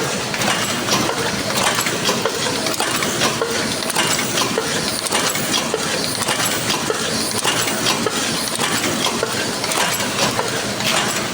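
Paper cup forming machine running, its mechanism clicking and clinking rapidly and steadily.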